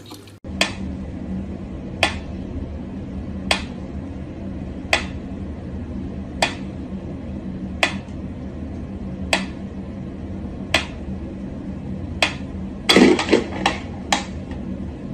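Mechanical pendulum metronome ticking slowly and evenly, about one tick every second and a half. A short burst of louder knocks and rattles comes about thirteen seconds in.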